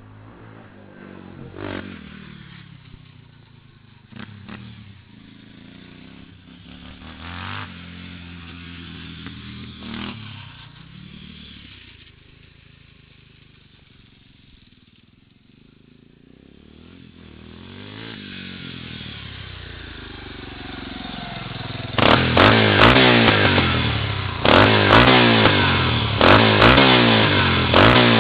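Yamaha Warrior four-wheeler's single-cylinder four-stroke engine with an FMF PowerCore 4 exhaust, running some way off with an engine note that rises and falls. It then comes closer, and about three quarters of the way in it turns loud and close, revving hard in repeated bursts about every two seconds.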